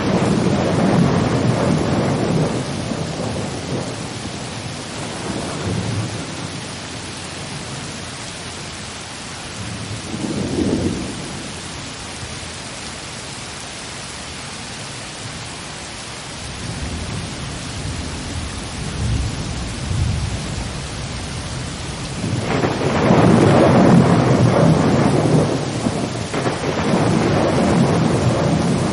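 Steady rain with rolls of thunder: a long rumble at the start, a short one about ten seconds in, and a longer, louder roll from about two-thirds of the way through.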